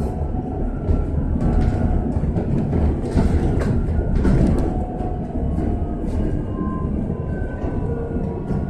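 Electric bus cabin while the bus is driving: a steady low rumble from the road, with frequent rattles and knocks from the interior and a faint steady whine.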